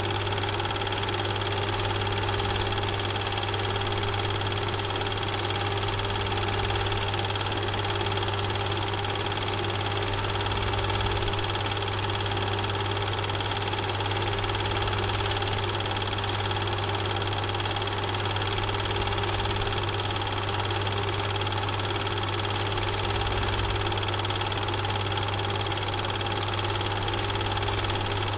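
Steady mechanical hum with a constant hiss, unchanging throughout, with a strong low drone and a few fixed higher tones.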